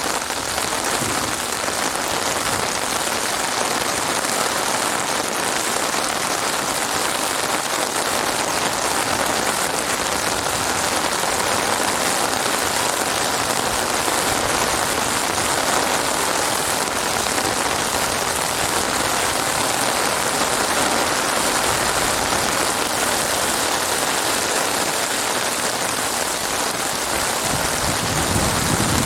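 Heavy rain falling steadily, a dense even hiss of drops on surfaces. A deeper rushing comes in near the end.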